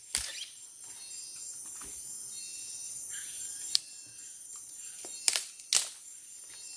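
Steady high-pitched insect chorus, with a handful of sharp clicks: one at the start, one in the middle and two close together near the end.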